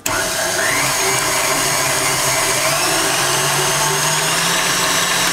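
KitchenAid Artisan stand mixer switched on suddenly and running steadily, its motor humming as the beater mixes liquid cake batter in the steel bowl.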